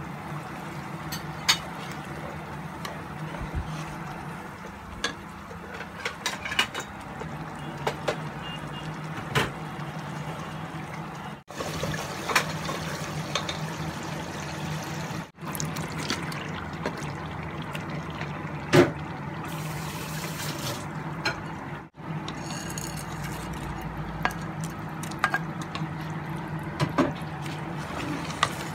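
Tomato masala sizzling and bubbling in a cooking pot, with a spatula scraping and knocking against the pan now and then. A steady low hum runs underneath.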